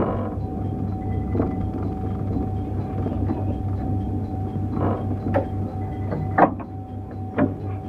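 Cab of a stationary 711 series electric train: a low hum pulsing about four times a second and a steady whine from the train's onboard equipment, with a few short clicks and knocks.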